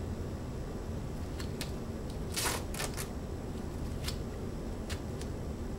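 Medical tape pulled and torn from a roll: a short ripping sound about two and a half seconds in, then two smaller rips, with light crinkling clicks as the tape is handled in gloved hands.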